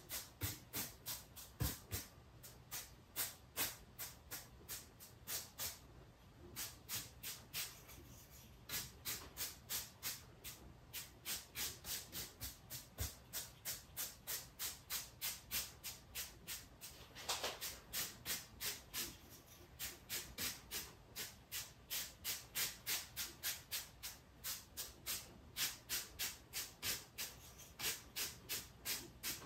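Quick, scratchy swishes of a cheap bristle paint brush dry-brushing across rough carved styrofoam, about three strokes a second, with one longer, louder stroke about halfway through.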